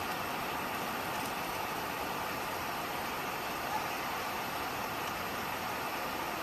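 Niagara's Horseshoe Falls: the steady rush of a huge waterfall, an even noise that never lets up.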